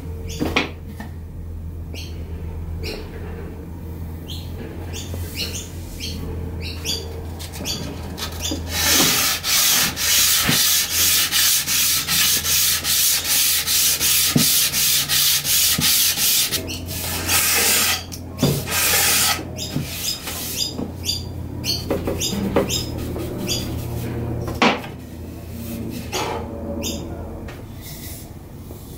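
Sandpaper rubbed by hand along the edge of a bare wooden tabletop in quick back-and-forth rasping strokes, fastest and loudest in the middle stretch.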